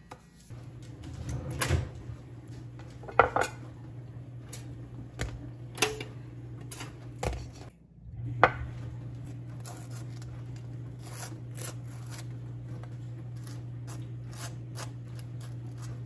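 A few knocks and clatters of kitchen handling, then a table knife scraping butter across a toasted bagel half in many small scratchy strokes. A low steady hum runs underneath.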